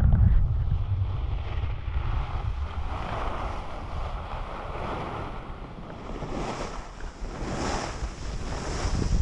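Wind buffeting the microphone while skiing downhill, over the hiss of skis sliding on packed snow. The low rumble is heaviest at the start and eases, and a few louder hissing scrapes come in the second half.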